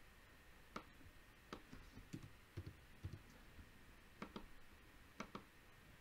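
Faint computer mouse clicks over a quiet room tone: several single clicks in the first half, then two quick double clicks about four and five seconds in.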